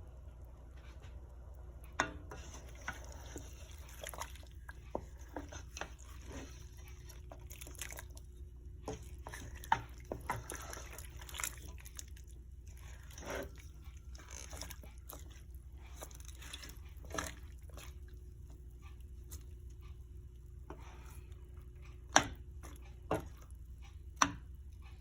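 Pot of red peas soup simmering: irregular bubbling pops and plops, a few sharper ones about two seconds in and near the end, over a steady low hum.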